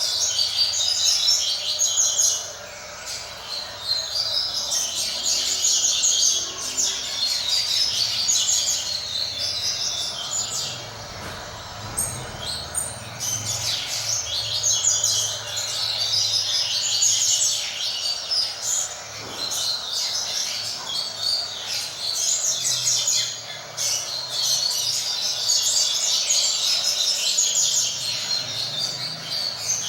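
Coleiro (double-collared seedeater) singing: long runs of fast, high chirped notes of the 'tui-tui fibra' song type, broken by short pauses.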